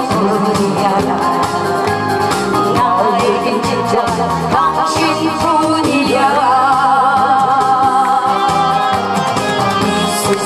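A man and a woman singing a duet into microphones over accompanying music, the sung notes held with vibrato.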